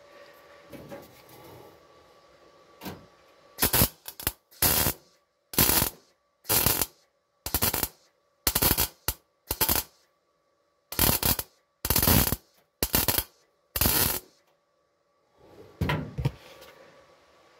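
MIG welder tack-welding a new steel floor pan in place: about a dozen short bursts of arc, each under half a second, roughly one a second, with silence between them.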